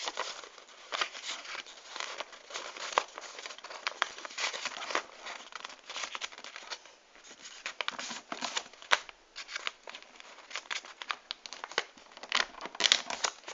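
A sheet of paper being folded and creased by hand into a paper aeroplane wing: continual rustling and crinkling with many short, sharp crackles as the folds are pressed.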